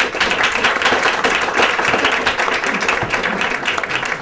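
An audience applauding: many people clapping together, dense and steady, easing off a little near the end.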